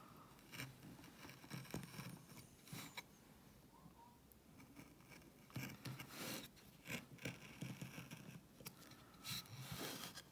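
V-gouge cutting into wood by hand: a series of short, faint, irregular scraping cuts as the tool is pushed through the grain.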